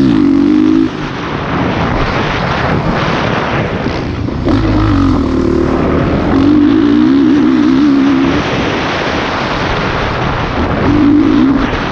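Honda CRF450R dirt bike's engine under hard riding, revving up and dropping off as the throttle is rolled on and off through the track's sections, with wind buffeting the helmet-mounted microphone.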